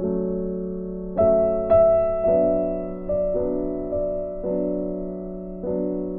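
Background music: soft piano chords struck about once a second, each note left to ring and fade.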